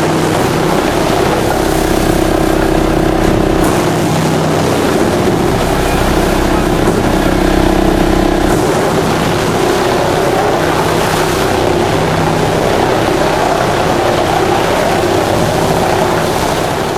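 Drum wood chipper running, a loud steady machine drone with humming tones that shift in pitch and strength about four seconds in and again near the middle.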